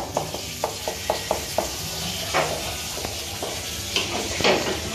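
Wooden spatula scraping and knocking against a non-stick frying pan, a quick run of light knocks in the first second and a half, over a steady sizzle of flour roux cooking for a white sauce.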